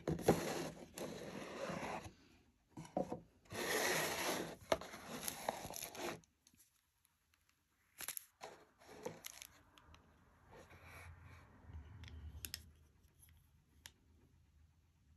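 Cardboard eyeglasses box and its packaging being handled: two long rustling, scraping bursts in the first six seconds, then softer rubbing with a few light clicks as the frames are taken out of their soft pouch.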